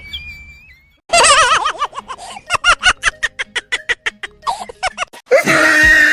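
Laughter: a wavering laugh a second in, then a run of quick, evenly spaced 'ha-ha' pulses, and a louder, denser burst of laughing near the end.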